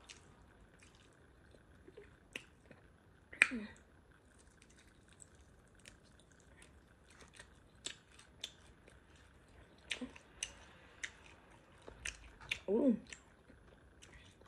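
A person chewing a sauced chicken wing close to the microphone: scattered wet mouth clicks and lip smacks. A short vocal sound breaks in twice, about three and a half seconds in and near the end.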